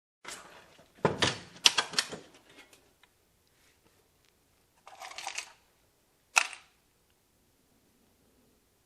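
A few sharp knocks and clatter of hard objects handled on a workbench, then a short rustle and one sharp click.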